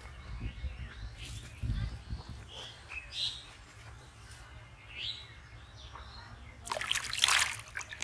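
Small birds chirping in short calls throughout. Near the end, a loud splash lasting about a second as a small fish lands in a plastic tub of water and thrashes.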